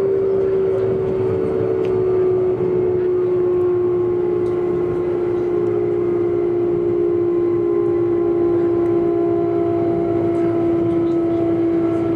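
Keio Series 8000 electric train running, heard from inside the car: a constant rumble of wheels on track under a strong humming tone that slowly falls in pitch, with fainter higher tones falling along with it.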